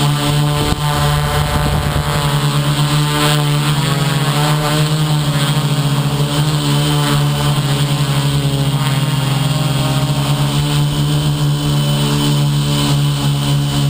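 Motor and propellers of an FPV aircraft running steadily in flight, a loud hum held at a nearly constant pitch with slight wavers in the first few seconds.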